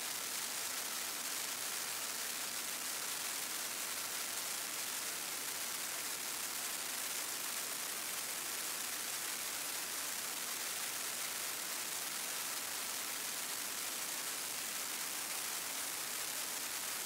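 Steady high hiss of air rushing past a camera mounted on a small plane in flight, unchanging throughout.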